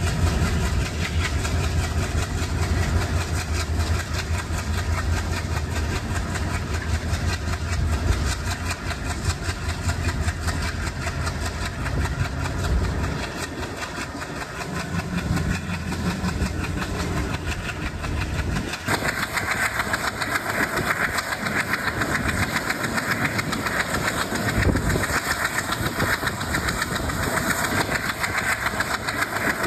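Twin ALCO diesel-electric locomotives running with a deep, steady rumble. Past the middle the rumble fades, and then the sound changes abruptly to a brighter, dense rattling noise.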